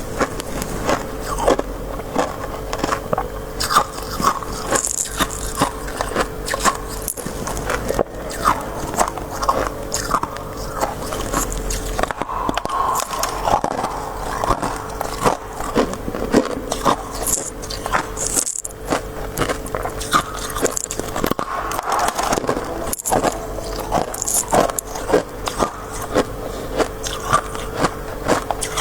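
Close-up crunching of freezer frost, crisp white shaved ice, being bitten and chewed: a dense run of sharp, irregular crunches, with a steady low hum underneath.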